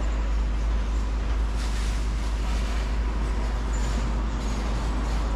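Steady low rumble under an even hiss of background noise, with no distinct event standing out.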